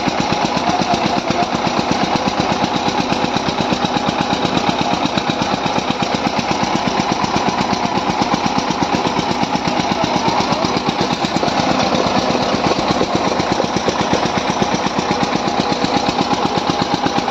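Tractor diesel engines running under heavy load in a chained tug-of-war pull, with a rapid, even beat of engine firing.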